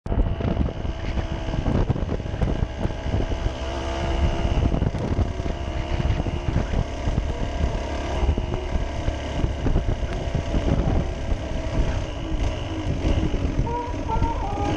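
Aprilia Tuareg Rally 125's two-stroke single-cylinder engine running under way, its revs rising and falling, with heavy wind noise buffeting the microphone.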